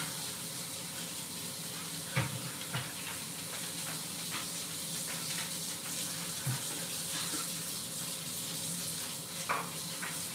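Kitchen faucet running steadily into the sink while leafy greens are rinsed under it, with a few soft knocks from handling the greens and containers.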